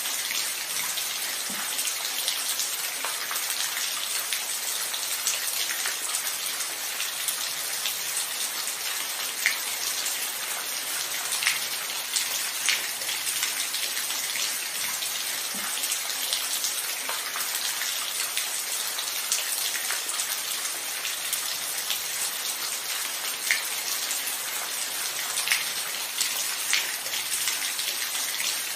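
Steady rain falling, a continuous hiss with individual drops ticking out here and there.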